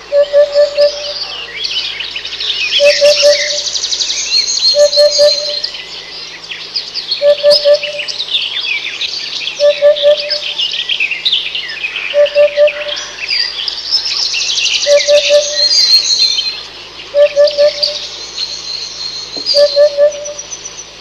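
Many birds chirping and trilling together in a dense, high-pitched chorus. Through it runs a lower, louder note given in quick groups of two or three pulses, repeating about every two seconds.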